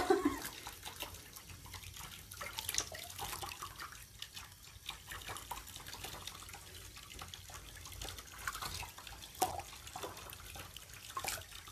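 Scattered small splashes and drips of water as a hand washes a wet rabbit in a basin.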